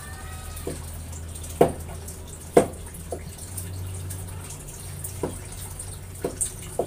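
Kitchen prep by hand: irregular sharp knocks and clinks from a knife on a cutting board and bowls being handled, two of them louder about a second and a half and two and a half seconds in, over light splashing of water in a washing basin and a steady low hum.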